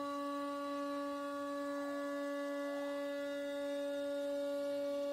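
A CNC router's 1,500 W spindle running at a steady pitch, a constant high whine, while the end mill cuts a curved path through a wooden sheet.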